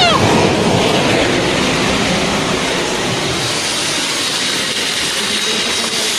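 Muddy floodwater rushing past below, a loud steady rushing noise with no let-up.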